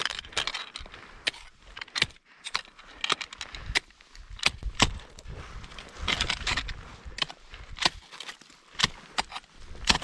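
Ice axes swung into hard ice and crusty snow: a series of sharp, irregular strikes, about one or two a second, with crunching of ice and snow between them.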